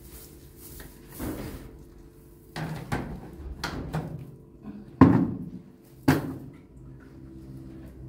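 A series of irregular knocks and thumps, about six in all, with the loudest about five seconds in.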